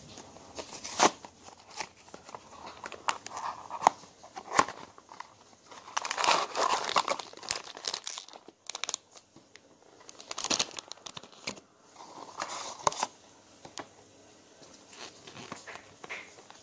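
Hands opening a small cardboard blind box, then tearing and crinkling a foil blind bag, with paper rustling as a folded checklist leaflet is opened. Several sharp snaps come in the first few seconds, with the loudest crinkling about six seconds in and shorter bursts later.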